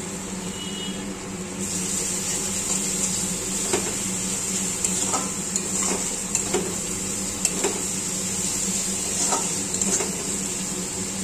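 Onion and garlic paste sizzling in hot mustard oil in a kadai, the sizzle growing louder about two seconds in, while a spatula stirs it with scattered clicks and scrapes against the pan.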